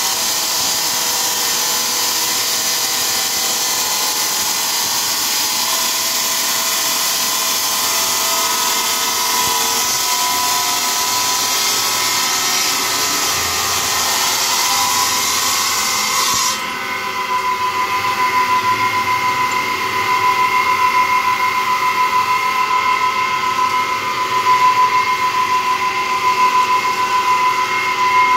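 Water-cooled bridge saw with a circular blade cutting through a ceramic tile: a steady, loud grinding noise over a high whine. About sixteen seconds in, the hissing part cuts off suddenly, leaving the blade spinning free with a steady whine.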